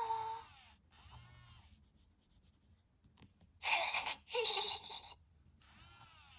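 Little Live Pets Cozy Dozys Cubbles the Bear plush toy playing its recorded baby-bear sounds. A falling cry tails off at the start, and two short breathy sounds come about halfway through.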